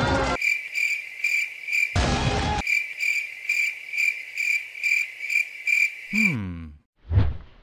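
Cricket chirping sound effect, a steady run of high chirps about four a second: the stock gag for an awkward silence. A short burst of low noise cuts in about two seconds in. Near the end the chirping stops, followed by a falling, sliding tone and a brief thump.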